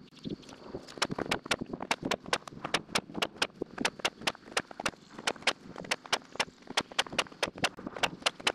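Rapid series of sharp wooden knocks and clacks, about four or five a second, as lumber boards are handled and knocked against each other.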